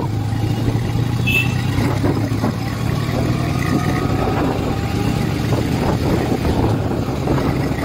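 Honda SP motorcycle's single-cylinder engine running steadily as the bike is ridden at an even pace, a continuous low hum with road noise over it.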